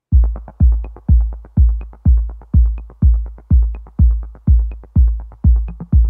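Electronic background music with a heavy, steady kick-drum beat about twice a second and light percussion ticks over it.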